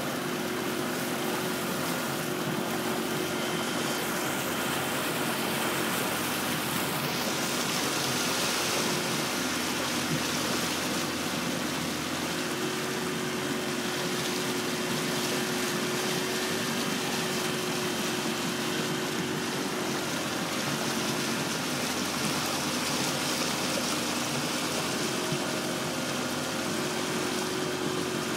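A boat's engine running at a steady hum, with water rushing along the hull as the boat moves.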